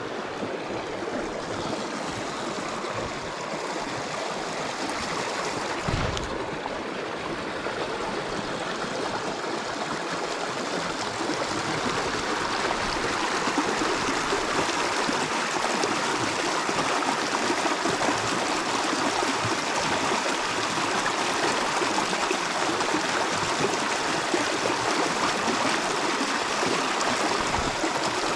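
Small creek running steadily over rocks, water splashing and babbling through a shallow riffle, a little louder from about halfway through. A single dull thump about six seconds in.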